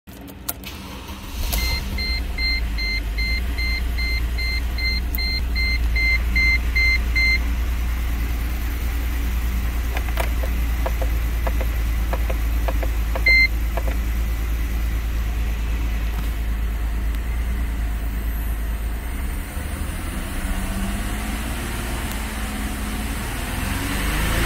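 2007 Mercedes-Benz C280's 3.0-litre V6 starting about a second and a half in and settling to idle, while a warning chime beeps about twice a second for several seconds. A few light clicks and a single beep follow mid-way, and near the end the engine is revved up to about 3,000 rpm.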